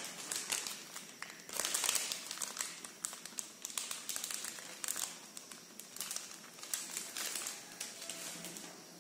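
Chicken pieces cooking in spiced oil in a black pot: an irregular crackle and sizzle, with bursts of clicking and scraping as a flat spatula stirs them.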